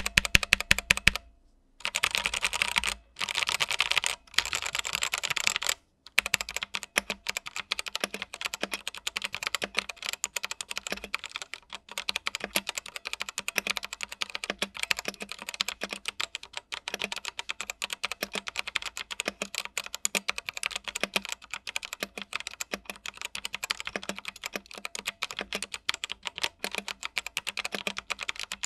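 Fast typing on a Digital Alliance Meca Air S mechanical keyboard with Otemu brown switches: a dense run of keystroke clacks, broken by a few brief pauses in the first six seconds.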